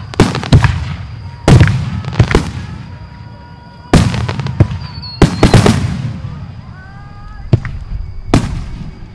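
Aerial fireworks shells bursting: about a dozen loud, sharp booms, some in quick clusters, each trailing off in a low rumble.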